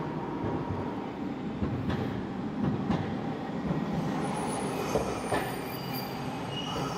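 A streetcar rolling past with a steady rumble, a few sharp clicks, and faint thin squeals near the end.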